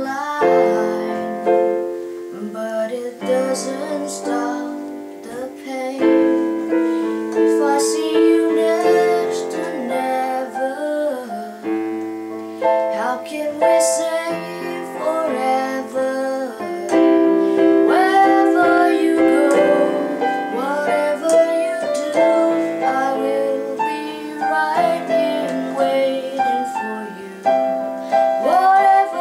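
A woman singing a song to a digital piano accompaniment, the keyboard playing steady chords under her voice.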